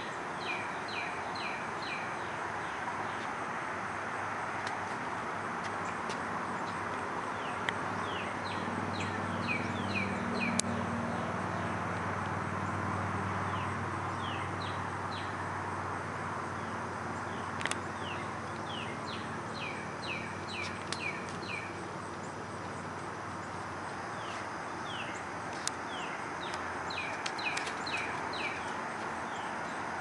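Northern cardinal singing several phrases of quick, repeated down-slurred whistled notes, a few seconds apart, over steady background noise. A low rumble swells and fades in the middle.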